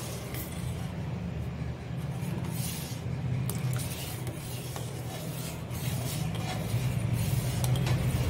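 Steel slotted spoon stirring hot milk in a steel pan, with soft, scattered scrapes against the pan, over a steady low hum.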